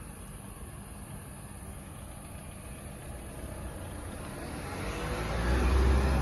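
A road vehicle passing, its engine and tyre noise swelling to a peak near the end over a steady low traffic rumble.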